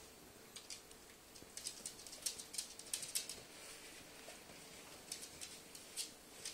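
Faint scratchy clicks and taps, in little clusters, as a cat and a Great Dane paw and scuffle on a wood-laminate floor. The busiest run comes about a second and a half in, with a few more taps near the end.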